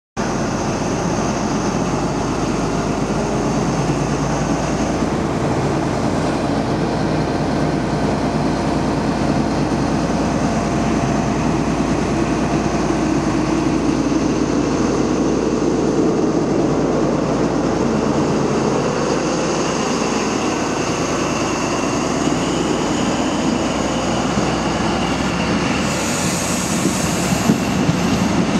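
Class 43 HST diesel power car running steadily, a low drone with a high steady tone over it. Near the end a high-pitched squeal and a few sharp clicks come in as the train's coaches roll past.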